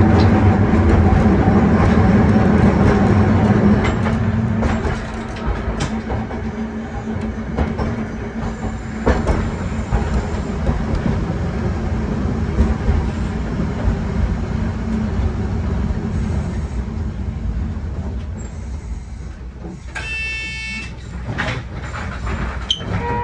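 Hankai Tramway's 1928 Kawasaki-built wooden tram running, heard from the cab: the hum of its nose-suspended traction motors and gears over the rumble of wheels on the rails. The motor hum is loud for the first four seconds, then eases off as the tram coasts. About twenty seconds in there is a brief high ringing tone.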